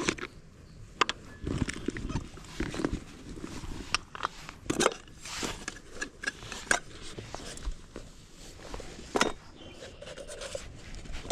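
Gear being handled and unpacked: irregular clicks, knocks, scrapes and rustling.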